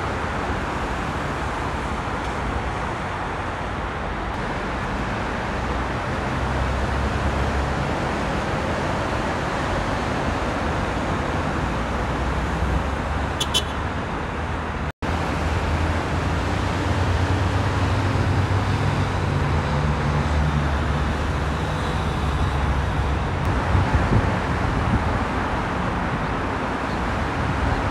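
Steady freeway traffic: tyre hiss and engine noise from cars and heavy trucks passing on a multi-lane highway, with a deeper engine drone growing stronger in the second half. The sound drops out for an instant about halfway through.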